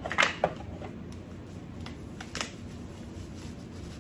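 Cardboard packaging handled and rustled as a small box is opened and an item lifted out, with a burst of rustles and light clicks just after the start and another short one about two and a half seconds in.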